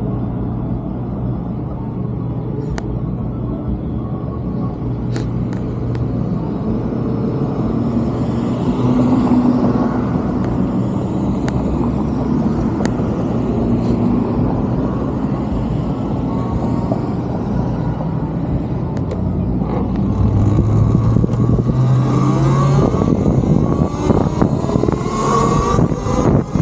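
Street traffic at a city intersection: cars idling and passing with a steady low hum. Near the end comes a rising whine as traffic pulls away.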